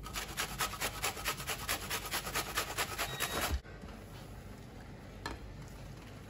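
An onion being grated on a metal box grater in quick, even strokes, about six a second, which stop abruptly about three and a half seconds in. Then quieter stirring with a spoon in a bowl of batter, with one light knock.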